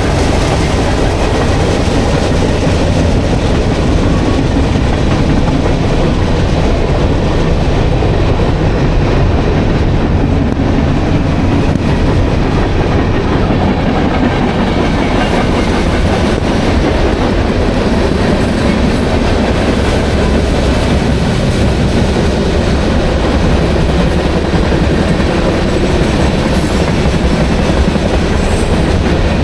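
CSX mixed freight train rolling past, a loud, steady rumble of the freight cars' wheels on the rails.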